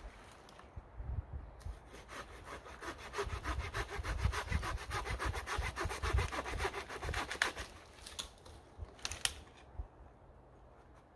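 Small hand saw cutting through a dead fallen branch in quick, even back-and-forth strokes. The sawing stops about eight seconds in, followed by a couple of sharp clicks.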